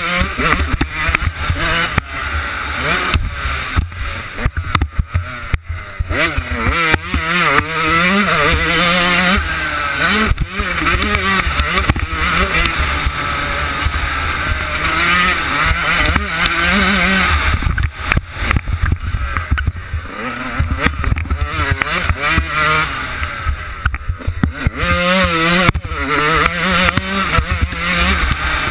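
Yamaha YZ125 two-stroke single-cylinder engine revving up and down over and over as the bike is ridden hard, pitch climbing through each gear and dropping briefly when the throttle is shut. Wind buffets the helmet camera's microphone throughout.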